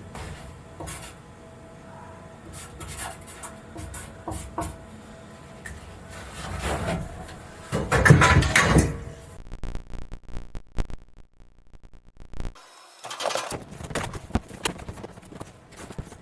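A pry bar working wooden boat interior pieces loose: scattered knocks, then a loud creaking scrape about eight seconds in, with more scraping and knocks near the end.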